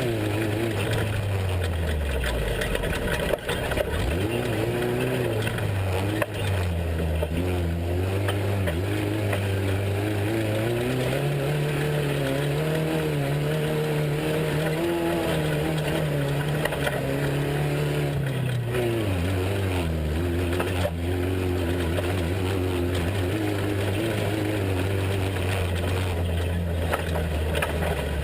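Off-road race truck's engine running at low revs, its pitch dipping in the first few seconds, rising about twelve seconds in, holding, and falling back about six seconds later.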